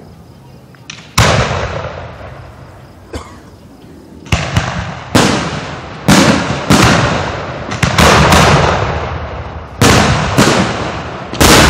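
Aerial fireworks shells bursting close by: one loud bang about a second in, then from about four seconds in a fast run of loud bangs, sometimes two or three a second, each dying away in an echo.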